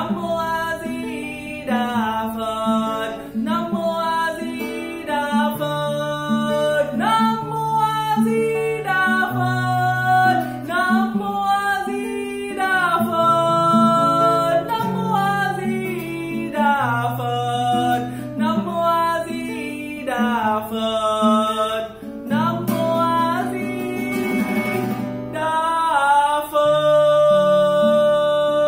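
A steel-string cutaway acoustic guitar with a capo plays a picked and strummed accompaniment while a man's voice sings the melody without clear words. It ends on a chord left ringing over the last couple of seconds.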